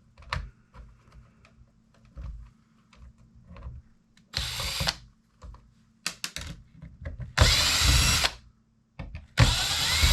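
Power screwdriver running in three short bursts of about a second each, backing screws out of a plastic clock case, with light clicks and taps of parts being handled between the bursts.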